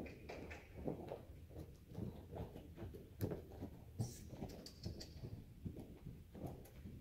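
Hoofbeats of a Canadian horse moving loose on soft arena footing: a run of irregular, dull thuds. There is a brief hiss about four seconds in.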